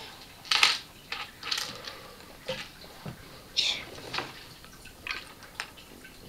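Plastic Lego bricks clicking and clattering as pieces are picked over in a metal tray and pressed together by hand, in a string of short, irregular clicks.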